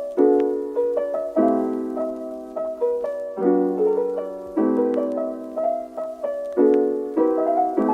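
Soft background piano music: slow chords struck about once a second, each left to ring and fade.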